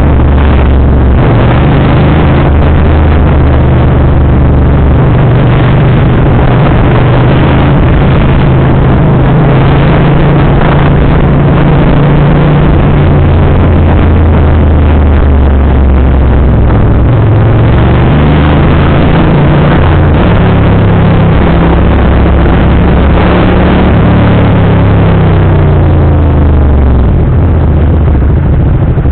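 A Naza Cruiser 650cc motorcycle engine running under way, its note stepping up and down with throttle and gear changes over a loud rush of road noise. Near the end the engine note falls away as the bike slows.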